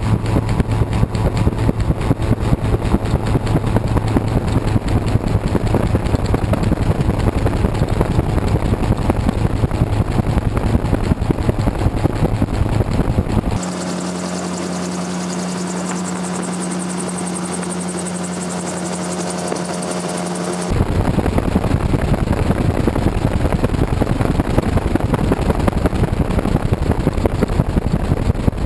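Gyrocopter in flight heard through a GoPro mounted on its spinning rotor blade: a loud, fast-pulsing wind rush over a steady engine drone. For about seven seconds in the middle the sound changes to a smoother, steady engine drone heard from the cockpit, then the fast-pulsing rotor-blade sound returns.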